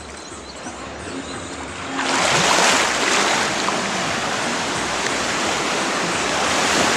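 Shallow surf washing in, a steady rush of water that gets louder about two seconds in.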